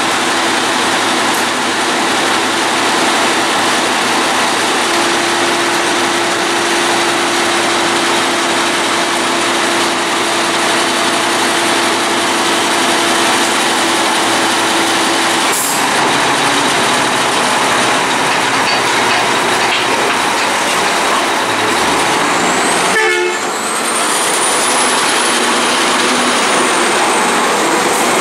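Front-loader garbage truck's engine running steadily and loudly, with a single click about halfway through and a faint high whistle that rises and then slowly falls in the last few seconds.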